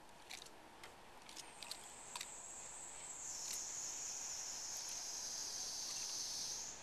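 A high, thin insect buzz sets in about a second and a half in, grows louder, drifts slowly lower in pitch and cuts off suddenly near the end. A few faint ticks come before it.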